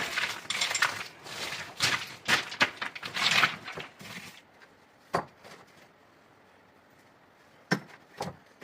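Rapid, busy clattering and knocking for about four seconds, then three separate sharp knocks spaced over the rest.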